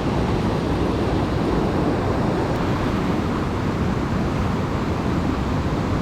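Steady rush of river water, an even hiss-like noise with no breaks.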